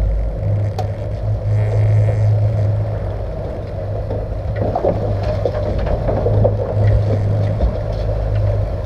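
Twin outboard motors running steadily as the boat travels, a constant drone under the rush of water along the hull, with a few light knocks.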